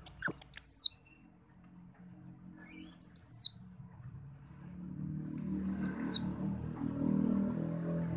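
A sunbird (kolibri wulung) giving three short, high chirping phrases about two and a half seconds apart. Each is a quick run of thin notes ending in a downward slide. A low rumbling background comes up from about five seconds in.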